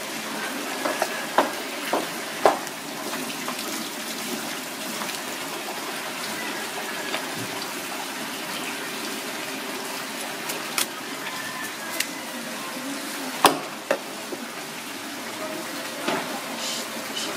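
A knife cutting roast pork on a wooden chopping block, with scattered sharp knocks of the blade against the wood, the loudest about two-thirds of the way through. A steady hiss runs underneath.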